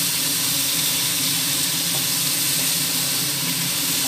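Chopped onions, tomatoes and cashews frying in oil in a nonstick pan: a steady sizzle, with a faint scrape or two of a wooden spatula stirring them.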